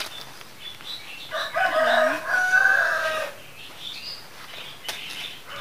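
A rooster crowing once in the background: one long call starting about a second in and lasting about two seconds.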